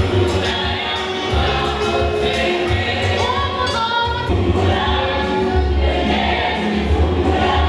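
A group of students singing a gospel song together as a choir, their voices loud and steady.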